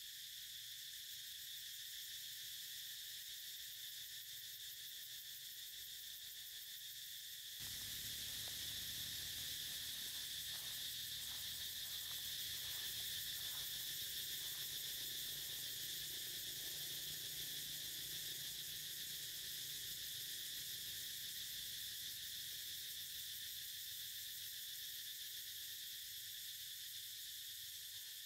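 Steady, high-pitched insect chorus. About eight seconds in, a faint low rumble joins, with a few faint ticks soon after.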